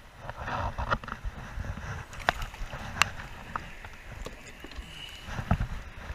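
Sharp clicks and knocks on a plastic fishing kayak as a freshly caught fish and tackle are handled, over a low irregular rumble. The loudest knocks come about two and three seconds in and again near the end.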